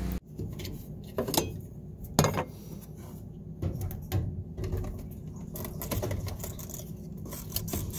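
Plastic car fuel pump assembly being worked out of the fuel tank's access opening: irregular clicks, knocks and scrapes of plastic against the tank flange, a few louder knocks in the first seconds.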